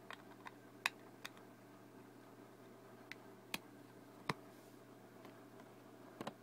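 Lego plastic pieces clicking and tapping as they are handled and pressed together: a scattering of sharp, irregular clicks, the loudest about a second in and around three and a half and four seconds in.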